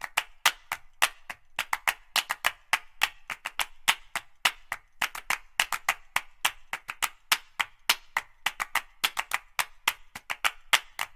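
Background music driven by fast, sharp clap and wood-block-like percussion hits, several a second in a steady rhythm.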